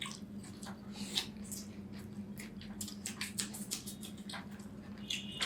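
Chewing and wet mouth smacking while eating chicken curry and rice, made of many short, soft clicks. A faint steady hum runs underneath.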